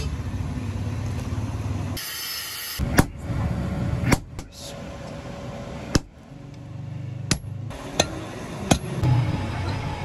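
Hammer blows on steel at an anvil: about six sharp, separate strikes a second or so apart, over a steady low workshop hum. The background changes abruptly several times, as short clips are cut together.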